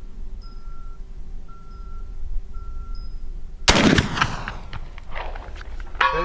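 A .45-70 black powder cartridge rifle fires a single shot about two-thirds of the way through: a loud blast with a long rumbling tail. Near the end comes a short ringing ding as the bullet hits a distant steel target. Faint short beeps repeat before the shot.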